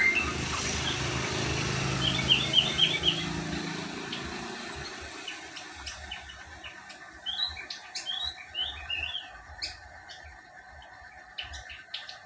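A female drongo (srigunting krantil bukit) giving its wild-type call: a quick run of short chirps about two seconds in, then scattered chirps and short sliding notes, with a few sharp clicks near the end.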